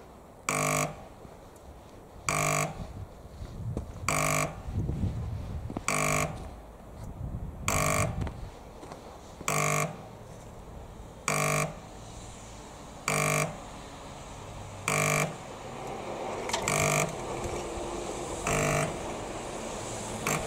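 AŽD 71 level-crossing warning hooter (houkačka) giving short buzzy hoots about once every 1.8 seconds, the signal that a train is approaching and the crossing is closing. A low rumble swells and fades midway, and a steady rumbling noise builds through the second half.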